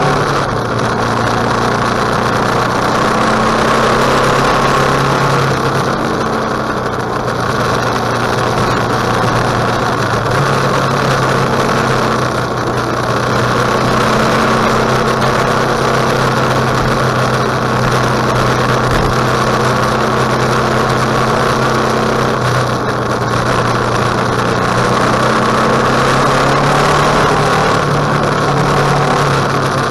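KTM 1050 Adventure's V-twin engine running steadily under way, with a constant rush of wind noise over it; the engine note shifts slightly in pitch a couple of times.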